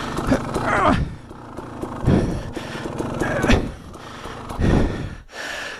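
Dirt bike engine running at low revs under the rider's heavy breathing and effortful grunts, as the bike is brought back down a hill it failed to climb.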